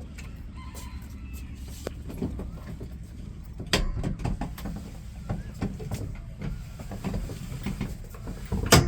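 A vehicle engine running steadily with an even low pulse, with a few sharp knocks and clatters, the loudest near the end.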